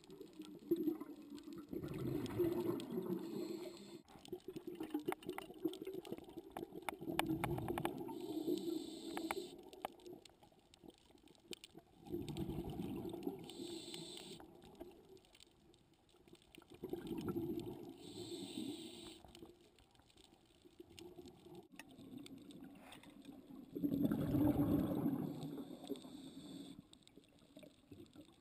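Scuba diver breathing through a regulator underwater: slow breaths about every five seconds, each exhale a bubbling rumble that swells and fades, some with a higher hiss.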